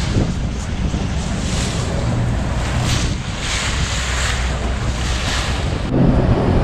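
Wind buffeting the microphone and water rushing and splashing past the hull of a boat under way, over a steady low engine hum. Near the end the sound changes abruptly to a duller, lower hum with less rush.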